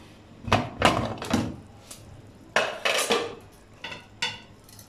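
A metal pressure cooker being opened: the lid is twisted free and lifted off the pot, metal clanking and scraping against metal in a few separate bursts, with two short ringing clinks near the end.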